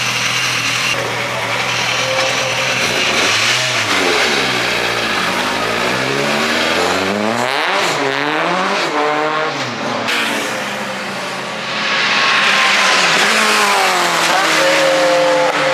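Mk2 Ford Cortina race car engine, idling steadily, then revving and accelerating hard, its pitch climbing and dropping through gear changes. Near the end it passes close and loud, its pitch falling as it goes by.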